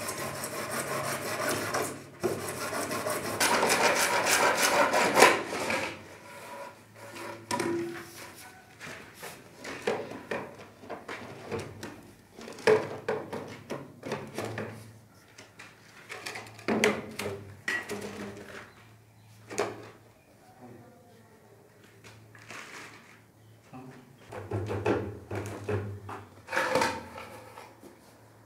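Hacksaw blade sawing through a large orange PVC drainage pipe in rapid back-and-forth strokes for the first six seconds or so. After that come scattered knocks and scrapes of the plastic pipe and fittings being handled on a concrete floor.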